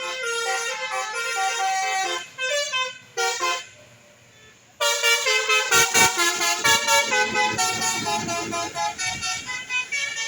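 Bus telolet horns playing a tune of quick stepped notes. They break off about three and a half seconds in, then cut back in louder about a second later, with a low rumble underneath as a bus passes.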